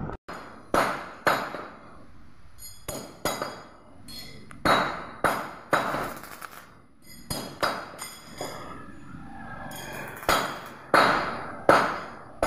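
A hammer striking the steel bars of a welded window grill: about fifteen sharp metallic clinks at an irregular pace, often in pairs, each leaving a short high ring in the steel.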